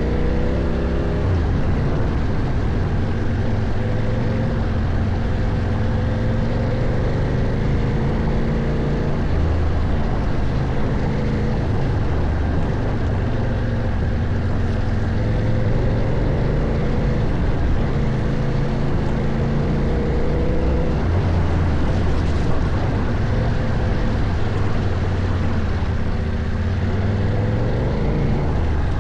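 CFMOTO Ibex 800T motorcycle's parallel-twin engine running under changing throttle while riding, its note rising and falling every few seconds. A steady rushing noise runs underneath.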